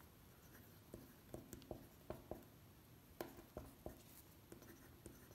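A pencil writing on lined notebook paper: a faint run of short, irregular strokes.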